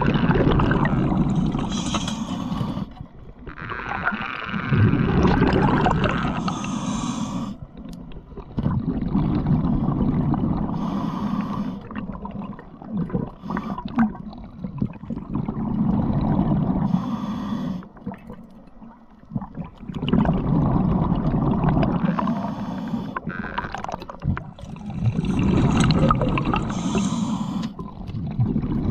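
Underwater scuba breathing: a diver drawing air through a regulator and breathing out in rumbling rushes of bubbles, in a slow cycle of a breath every four to five seconds.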